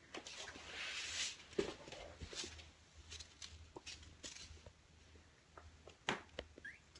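Faint scattered taps, scuffs and small clicks of kittens scampering and playing with toys on a floor, with a brief soft rushing noise about a second in and a sharper click near the end.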